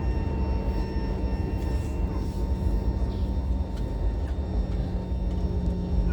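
Airliner cabin noise: a steady low rumble with a constant high whine running over it.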